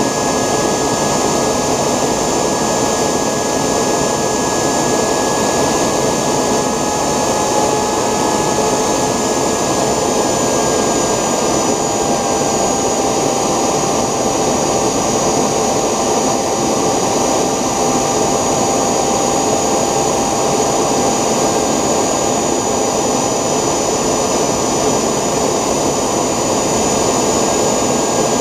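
3D-printed model jet engine running steadily: a constant rush of air with a thin, high whine over it. The whine shifts slightly in pitch about ten seconds in.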